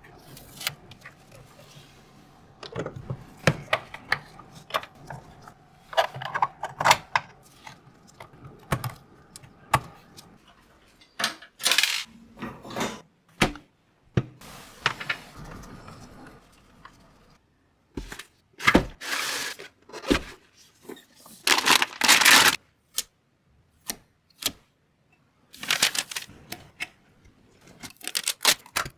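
Hands handling PC components and packaging: scattered clicks, small hard knocks and clinks, with several short bursts of rustling or tearing packaging.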